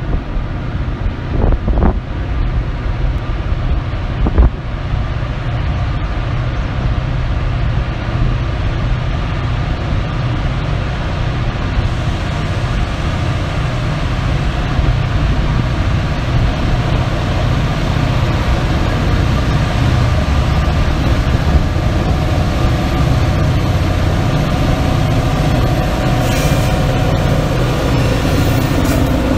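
EMD diesel-electric freight locomotives, a GP38-3 leading two SD40-2s, approaching with a low engine rumble that builds steadily until the lead unit passes close by near the end. Wind buffets the microphone in the first few seconds.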